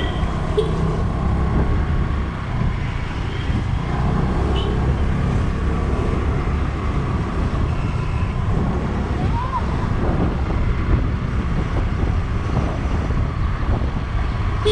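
Motorcycle riding along a road: steady engine and road noise with low rumbling wind on the microphone, and a few faint short tones from surrounding traffic.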